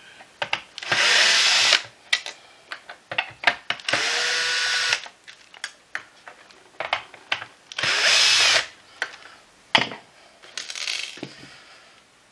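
Small cordless drill-driver whirring in short runs as it backs screws out of a plastic vacuum floor head: three loud runs of about a second each and a fainter, shorter one near the end. Clicks and taps of screws and plastic being handled fall between the runs.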